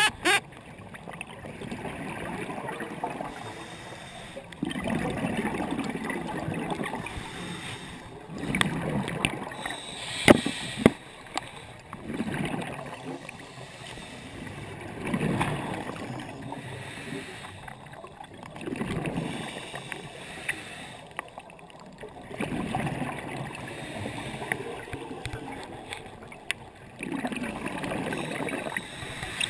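Scuba regulator breathing heard underwater through a GoPro dive housing: muffled, gurgling swells of exhaled bubbles every three to four seconds, with two sharp clicks about ten seconds in.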